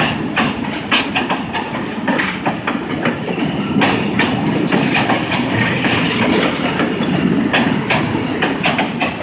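Passenger train rolling slowly past, its wheels clicking irregularly over the rail joints above a steady rumble.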